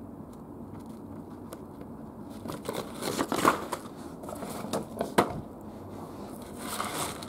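Paper rustling and crinkling as loose sheets of paperwork are handled and lifted, starting a few seconds in and coming again near the end, with one sharp click in between.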